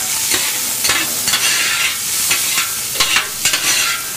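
Chopped onion, carrot and celery sizzling in olive oil in a copper saucepan, with a long-handled spoon scraping and knocking against the pan at irregular moments as they are stirred.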